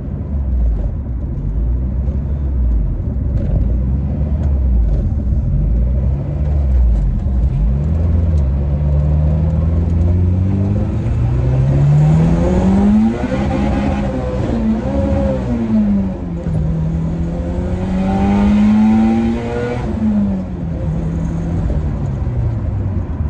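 Turbocharged Acura Integra LS/VTEC engine revving through pulls. Its pitch runs low and steady at first, climbs to a peak about halfway, wavers, climbs again and then drops near the end.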